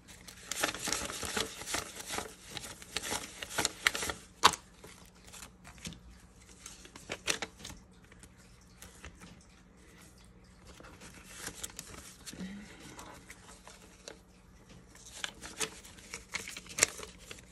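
Paper banknotes rustling and crinkling as they are handled and counted, with the crackle of a clear plastic binder envelope. The rustling comes in a dense stretch at the start, with a sharp click about four and a half seconds in; it is sparser through the middle and picks up again near the end.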